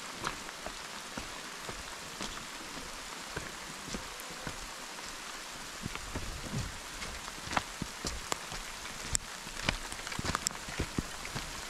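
Steady rain hissing down on rocky ground, with scattered sharp taps of drops that come more often and louder in the second half.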